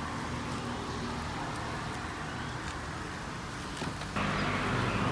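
A motor vehicle engine running with steady traffic noise, growing louder about four seconds in.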